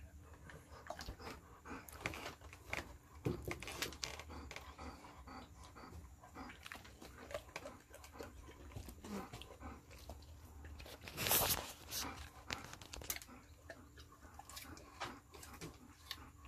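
Greater Swiss Mountain dog bobbing for apples in a bucket of water: irregular splashing, biting and crunching as it mouths the apples, with one louder burst of noise about 11 seconds in.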